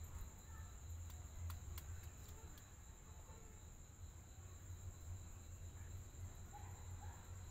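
Faint, steady high-pitched whine like insects or crickets over a low hum, with a few light clicks early on and a couple of soft squeaks near the end.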